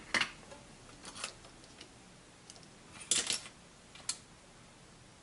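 A few light clicks and taps of wires and small tools being handled at a workbench, with a quick cluster of clicks about three seconds in being the loudest.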